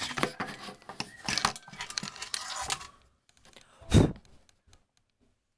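Handling noise on the camera's microphone: fingers rubbing and tapping over it, a dense rustling and clicking for about three seconds, then one loud knock about four seconds in.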